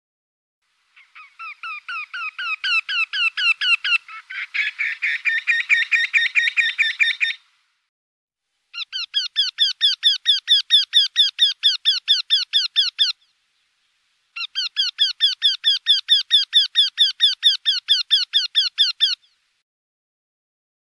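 Eurasian wryneck singing: three series of quickly repeated short rising notes, about eight a second, each series lasting four to six seconds with a short pause between. The first series grows louder and is overlapped partway through by a second series.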